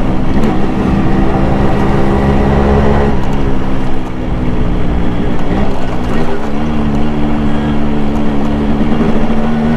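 A Yamaha RX100's single-cylinder two-stroke engine running on the move, heard from the rider's position. The revs ease off about three seconds in, then pick up again and hold steady from about six seconds.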